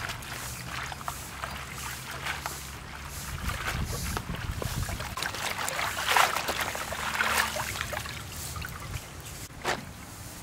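Water sloshing and splashing in a steel basin as bunches of water spinach are swished and rinsed by hand, loudest about six seconds in, with one sharp knock near the end.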